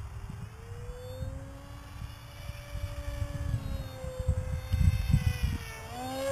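Electric motor and propeller of a radio-controlled model airplane whining in flight, the pitch bending slowly up and down, then dipping and rising sharply near the end. Wind rumbles on the microphone, loudest about five seconds in.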